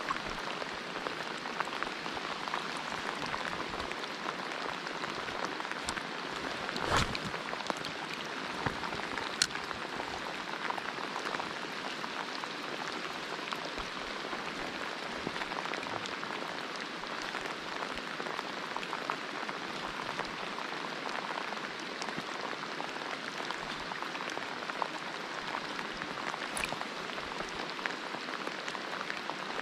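Steady rain falling, an even hiss, broken by a few sharp clicks or knocks, the loudest about seven seconds in.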